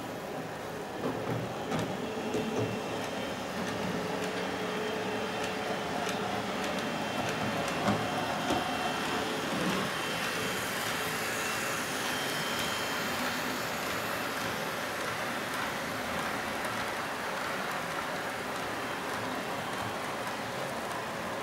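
H0 scale model train running: a Re 4/4 II electric locomotive's small motor whirring and the wagons' wheels rattling on the track, with a few clicks, getting louder over the first few seconds as it approaches.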